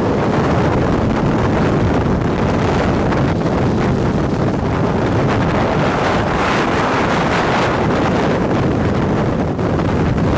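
Strong wind from a nearby tornado buffeting the microphone over the steady road noise of a moving car. The wind hiss swells for a couple of seconds about six seconds in.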